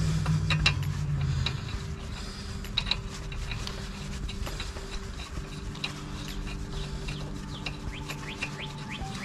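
A few light metallic clicks as a spark plug is handled and threaded by hand into a V-twin lawn mower engine's cylinder head. Under them runs a steady low drone, and birds chirp in quick rising notes in the second half.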